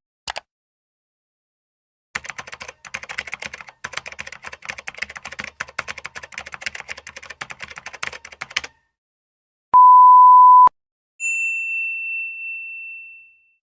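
Sound-effect sequence: a short click, then computer-keyboard typing, a rapid irregular clatter of key clicks lasting about six seconds. Then a steady one-second beep tone, followed by a single high bell ding that rings and fades over about two seconds.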